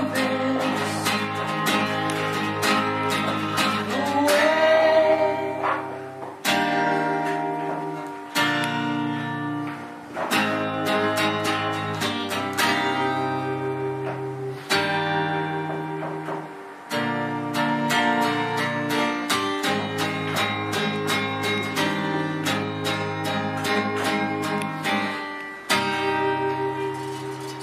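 Acoustic guitar strummed in steady rhythmic chords, with a man's singing voice over it at times. The strumming grows quieter near the end, as the song winds down.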